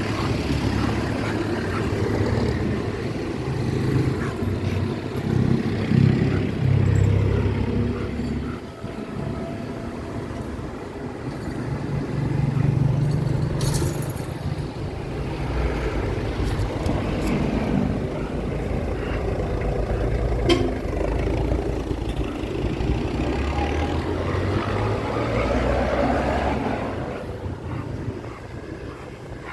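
A motor vehicle running, a low rumble whose pitch shifts up and down several times.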